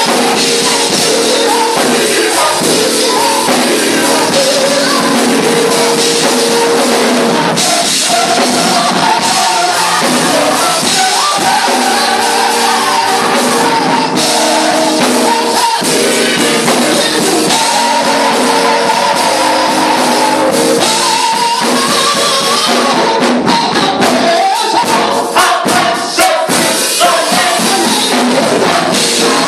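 Church vocal group singing together over live music accompaniment, with a lead singer on a microphone. The singing is loud and runs without a break.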